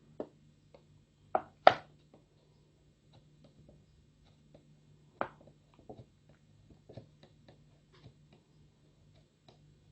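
Light, irregular taps and clicks of a soldering iron tip touching and pressing into a thin plastic bottle to melt small dots into it, with a few louder taps near the start and about halfway, over a faint steady hum.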